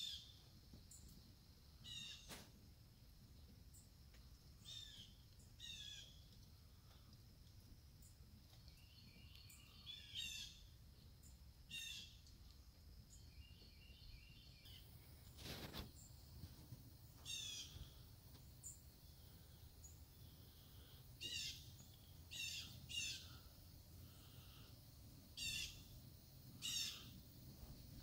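Small birds chirping: short, sharp calls that come every second or two, some quickly repeated in pairs or runs, over a faint steady outdoor background.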